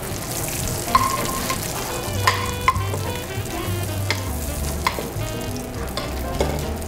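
Floured sea bream fillet frying in foaming butter in a pan, with a steady sizzle. A spoon clinks against the pan several times as the hot butter is spooned over the fish.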